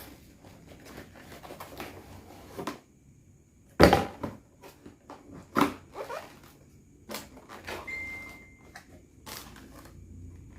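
Packaging and parts of a microphone box being handled and unpacked: scattered clicks and rustles, with a sharp knock about four seconds in and another near six seconds. A brief steady high tone sounds for under a second around eight seconds in.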